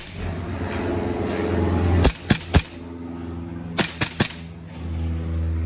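Green gas blowback airsoft pistol, a Glock-style model, fired in single-shot mode: six sharp shots in two quick strings of three, the strings about a second and a half apart.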